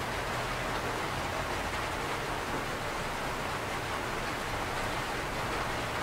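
Steady rain falling, an even hiss that does not let up.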